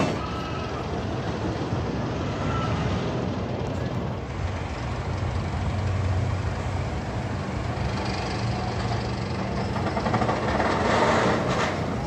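Diesel engine of construction plant running steadily with a low hum, and a louder swell of noise near the end.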